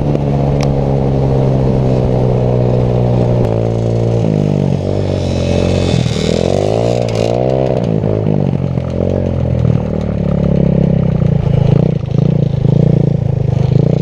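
Small 125cc quad engine revving, its pitch falling, then rising and falling several times. It runs choppier and more uneven in the last few seconds.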